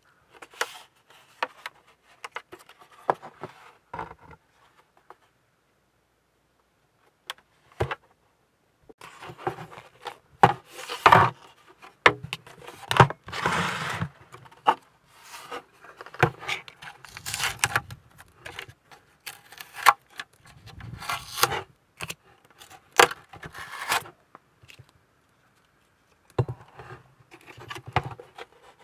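Yellow masking tape being pulled, torn and pressed along a 1/350 plastic model ship hull, with the hollow styrene hull halves rubbing and knocking as they are handled. The sound comes in irregular rasping bursts with two short pauses.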